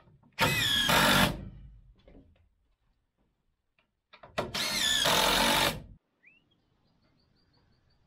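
Cordless drill running under load as it drives screws into a timber brace: two runs of about a second and a half each, a few seconds apart, the motor's pitch wavering as it works.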